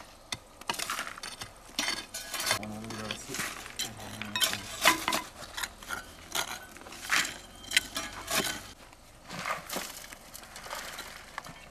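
Hand excavation tools, a small pick and a trowel, chipping and scraping dry soil among stones, giving irregular clinks and scrapes.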